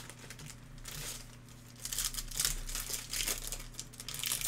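Foil wrapper of a Panini Elite basketball card pack being torn open and crinkled by hand, in three or four crackly bursts.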